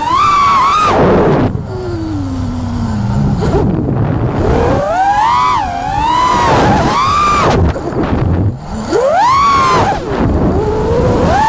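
FPV quadcopter's electric motors whining, the pitch swooping up and down with the throttle, dropping to a low hum for a couple of seconds early on and briefly again later.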